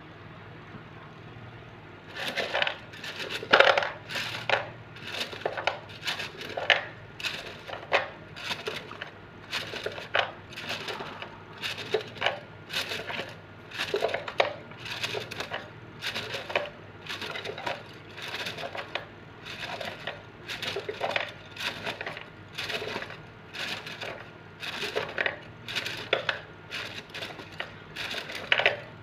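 Bamboo cylinder of wooden fortune sticks (thẻ xăm) being shaken, a steady rhythmic clattering of about one to two rattles a second that starts about two seconds in. The shaking works the sticks loose until one falls out to be read.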